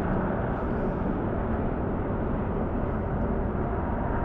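Steady low rumbling noise, even and unchanging throughout.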